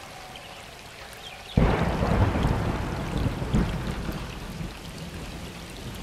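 Steady rain, then a sudden close thunderclap about a second and a half in that rumbles and slowly fades. A second jolt of rumble comes about two seconds later.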